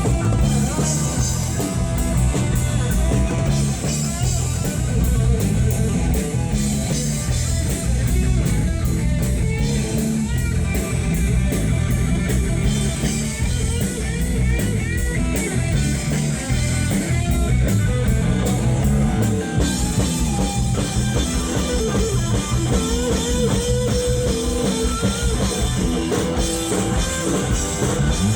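A live rock band playing loud, with electric guitar and a drum kit.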